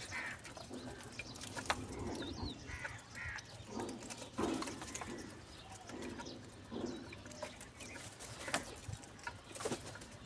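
Birds calling: a string of short, low coos with a few higher calls between them, and several sharp clicks.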